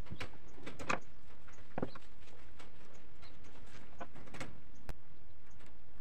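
Scattered light clicks and rattles of wire mesh being handled while tie wire is twisted with pliers, at irregular intervals, with a sharper knock about five seconds in.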